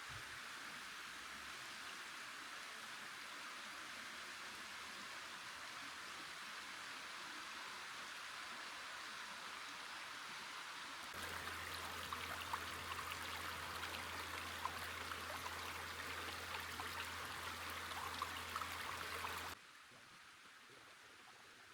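Steady rush of a flowing creek. About halfway through it turns louder and closer, with lots of small splashes and trickling drips. It cuts off abruptly near the end to a faint hiss.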